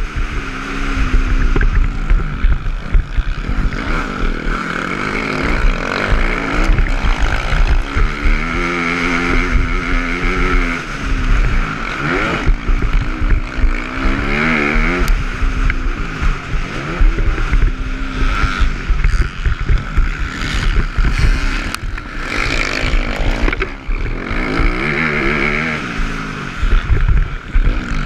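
Dirt bike engine revving up and down repeatedly while ridden hard over a motocross track, heard close up from a camera on the bike or rider. Heavy wind rumble runs underneath.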